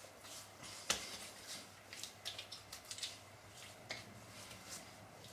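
Faint, soft rubbing and patting of hands on wet skin as a face cream is worked in, with small scattered ticks and one sharper tap about a second in.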